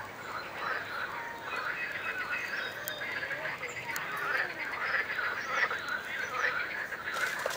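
A dense, continuous chorus of many frogs calling.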